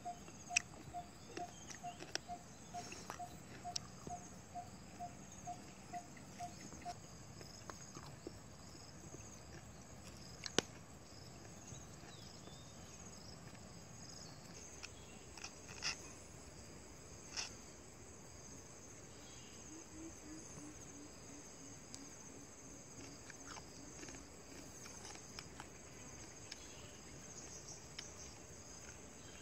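Insects chirring steadily at a high pitch. For the first seven seconds a pulsing call repeats evenly, about two or three notes a second. About twenty seconds in, a run of lower, slightly falling notes is heard. Faint sharp clicks and taps are scattered throughout.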